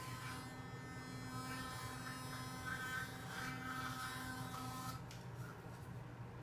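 Children's battery-powered electric toothbrush buzzing steadily while brushing teeth, then switched off about five seconds in.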